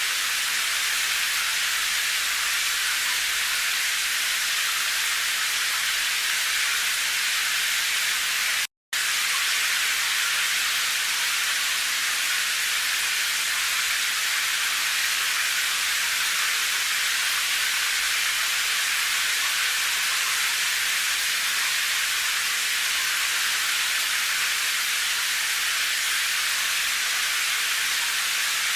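Steady rain, an even hiss with most of its energy in the upper range and little low end. It cuts out completely for a split second about nine seconds in, then resumes unchanged.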